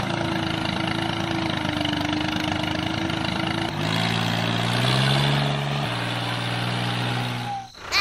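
Tractor engine running steadily, its note shifting a little before halfway and again about six seconds in.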